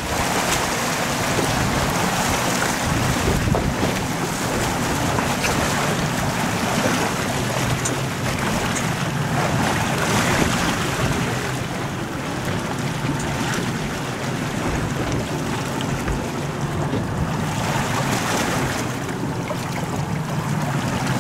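Powerboat's engine running steadily, with water churning in its wake and wind buffeting the microphone.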